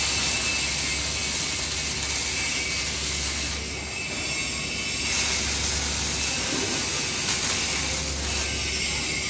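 An OTC robot's welding arc running on a steel pole, a steady noisy hiss with a slight dip about four seconds in.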